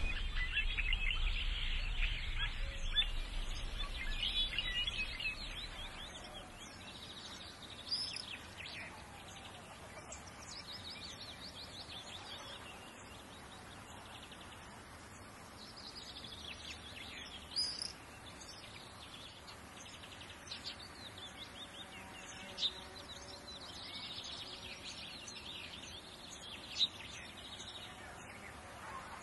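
Small birds chirping and singing in an olive grove, busiest in the first few seconds, with a few short sharp clicks scattered through.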